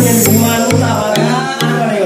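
Background music with a steady beat of a little over two pulses a second and a melody over it.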